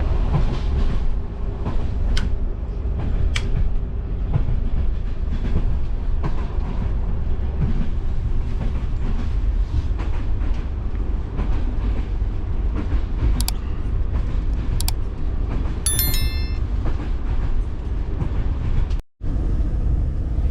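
Older BDZ passenger carriage running along the track: a steady low rumble with scattered wheel clicks. About 16 seconds in there is a brief high-pitched metallic squeal, and near the end the sound drops out for a moment.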